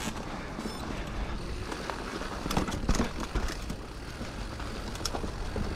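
Scott Genius 950 full-suspension mountain bike ridden down a dirt trail: a steady low rumble of tyres and air, with a few sharp knocks and rattles from the bike about two and a half to three seconds in and again near the end.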